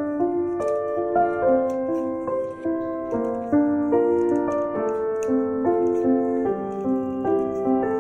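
Background piano music: a melody of steady notes, changing a few times a second.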